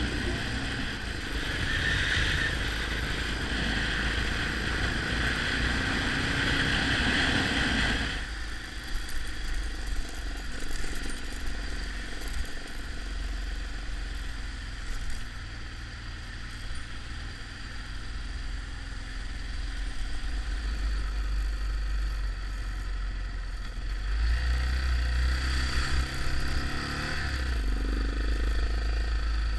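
Motorcycle being ridden, most likely one of the rented Yamaha XT 600 singles: a steady deep rumble with hissing wind and road noise on top. The hiss is louder for the first several seconds and swells again near the end.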